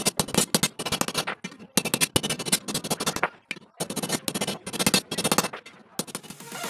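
A hammer taps rapidly on a steel grill ring held on a stake, in three long bursts of quick strikes with short pauses between them. Electronic intro music comes in near the end.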